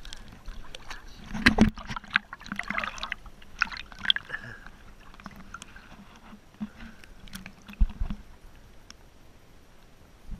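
Shallow sea water sloshing and splashing around a camera held at the water's surface, with irregular splashes and knocks, loudest about a second and a half in and again near eight seconds.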